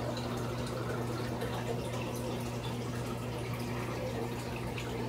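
Aquarium water trickling and dripping, likely at a filter outflow, over a steady low electrical hum.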